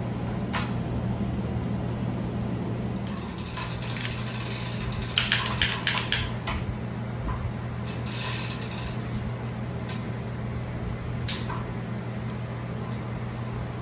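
Scattered light metallic clicks and clinks, like small metal parts or tools being handled, the busiest stretch about five to six seconds in, over a steady low hum.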